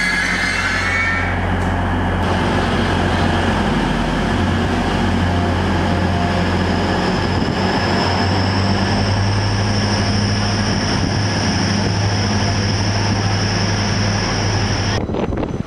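First Hull Trains Class 180 diesel multiple unit moving past close by, its diesel engines running with a steady low drone. A thin high whine comes in and rises slightly about halfway through.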